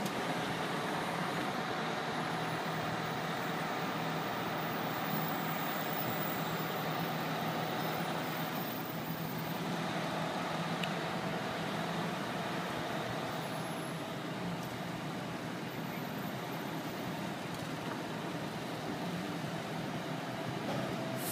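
A fire engine's diesel engine idling steadily in its station bay, with cars passing on the street in front.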